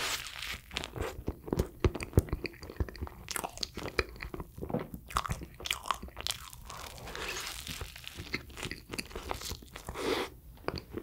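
Close-up mouth sounds of a person biting into and chewing sweet bread: irregular wet clicks and soft crunches of mastication.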